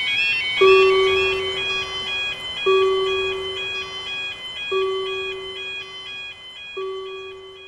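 Japanese railroad-crossing warning sound: a high electronic two-tone chime alternating about twice a second, steady throughout. A lower note is struck four times about two seconds apart, fading after each strike.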